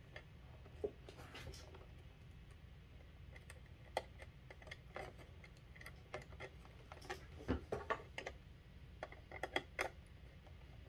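Light, irregular clicks and ticks of hands handling wire ends and pushing them into the screw-terminal connectors on a controller circuit board, coming more often in the second half.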